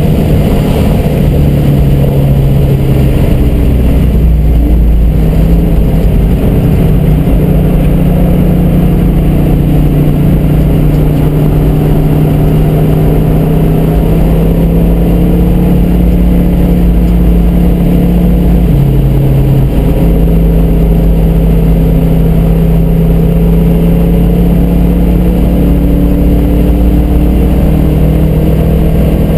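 1967 Shelby GT350's 289 V8 running hard under load at track speed, heard from inside the cabin. The engine note holds steady, with two brief dips in pitch.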